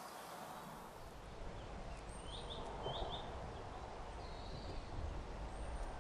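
Quiet outdoor background with a low rumble, and a few short bird chirps about two to three seconds in, then one longer call.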